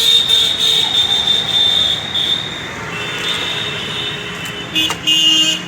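Street traffic noise with long, high vehicle-horn tones, and a louder honk near the end.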